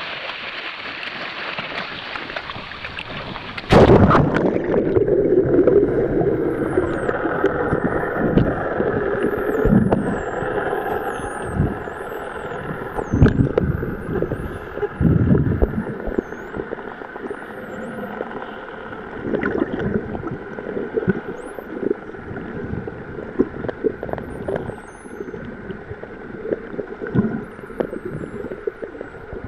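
Rushing surface water, then a splash and a sudden switch to muffled underwater sound about four seconds in, with bubbling and low thumps. Over this, short-beaked common dolphins whistle: many thin, high whistles rising and falling in pitch, thickest in the middle of the stretch and returning near the end.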